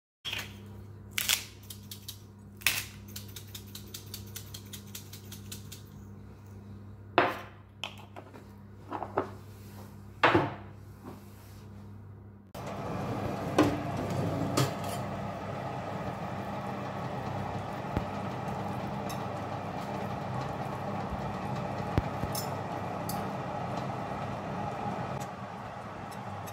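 Kitchen clatter: a few sharp knocks and clinks of dishes or utensils and a quick run of light ticks over a low steady hum. About halfway through, a fan oven's fan starts running steadily, with a couple of clinks near the start of it.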